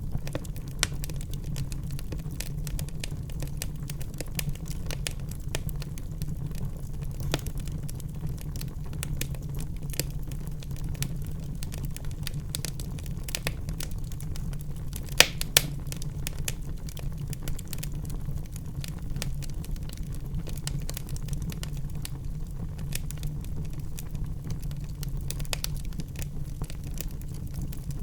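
Wood fire in a fireplace crackling over a steady low rumble, with irregular snaps and a pair of louder pops about halfway through.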